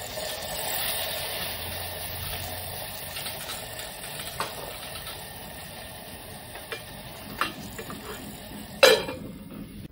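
Raw mango pieces in a hot ghee-and-oil tempering sizzling steadily in a stone pot just after water is poured in, swelling in the first second and slowly easing. A few light taps and one sharp metallic clink near the end.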